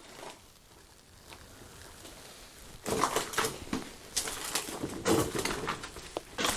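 Footsteps crunching over debris on a floor, an irregular string of crunches and scuffs starting about three seconds in.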